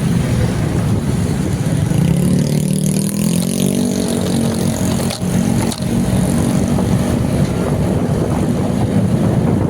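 Motor vehicle engine running steadily, its pitch shifting up and back about three seconds in, with rushing wind noise on the microphone.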